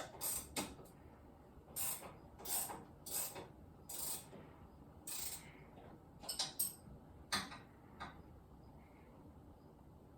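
Short mechanical rasps and clicks of tool work on a lift under repair: about ten irregular strokes over the first eight seconds, then they stop.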